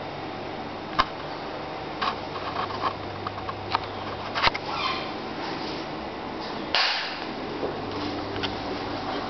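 Room tone of a small tiled room: a steady low hum with scattered clicks and knocks, and a short rustling burst about seven seconds in.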